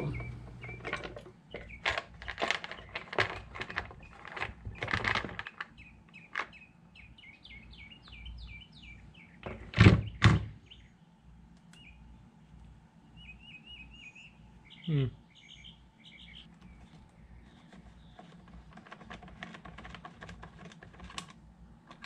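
Clicks and plastic clatter of a Husqvarna 55 Rancher chainsaw's top cover being unclipped and lifted off, with two louder knocks about halfway through as the cover is set down on a wooden workbench. Small birds chirp faintly now and then.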